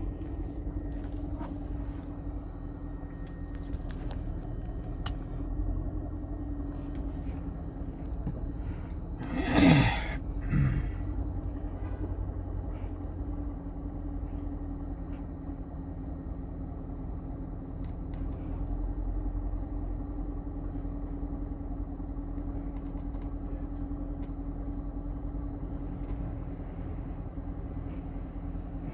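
A 2016 Corvette C7's 6.2-litre V8 idling steadily with a low rumble. A brief, loud whoosh with a falling pitch cuts in about ten seconds in.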